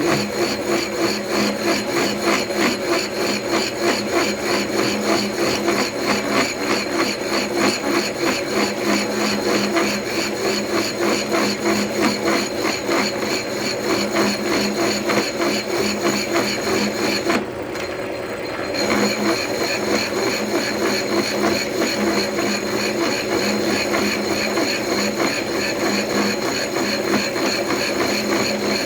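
Milling machine taking a cut in metal: a steady motor and spindle hum with a fast, even pulsing as the cutter's teeth strike the work. The sound drops away briefly for about a second past the middle, then resumes.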